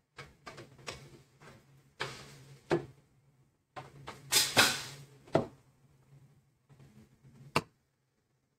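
Knocks and short scraping noises from a plastic spatula and a nonstick frying pan being handled on a glass-ceramic hob, over a faint low steady hum. Three sharp knocks stand out, about three, five and a half, and seven and a half seconds in.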